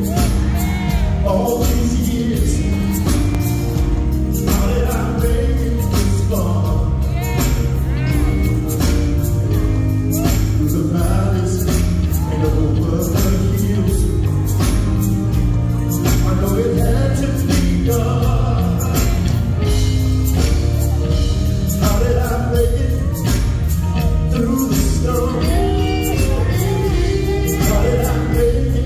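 Live gospel music: a male lead singer and backing vocalists singing over an amplified band of drums and guitars, with a steady drum beat.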